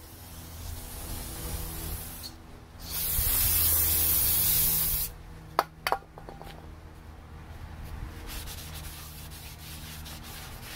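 Rubbing and scraping as a brake part is worked on, then a loud steady hiss of about two seconds, then two sharp clicks.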